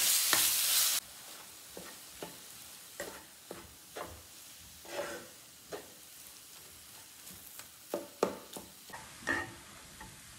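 Chicken mince frying over high heat in a Le Creuset frying pan: a loud sizzle that drops abruptly about a second in to a much fainter sizzle. Through the rest, a spatula scrapes and knocks against the pan every second or so as the mince is stirred.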